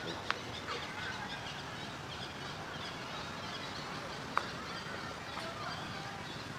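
Outdoor ambience with scattered faint bird calls and two sharp clicks, one near the start and one about four seconds in.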